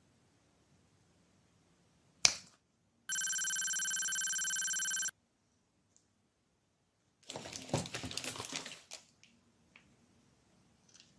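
A sharp click, then a steady electronic beep held for about two seconds that cuts off abruptly, followed a couple of seconds later by about two seconds of irregular crackling noise.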